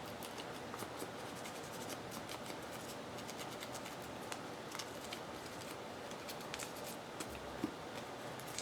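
Paper and craft supplies being handled at a work table: faint rustling with scattered small ticks and clicks.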